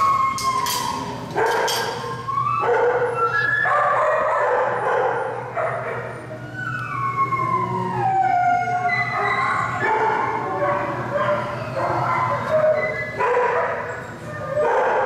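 Several shelter dogs barking and howling at once: sharp barks over overlapping howls that slide down in pitch.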